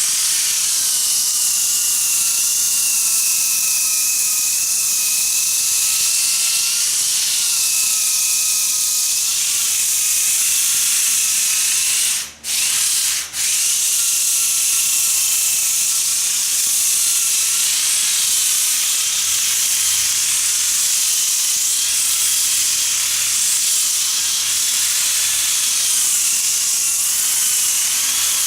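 Electric floor sander with 40-grit paper running under load against hardwood boards: a steady hissing rush with a wavering whine. It cuts out twice briefly about twelve seconds in, which fits a plug working loose at the very end of its cord.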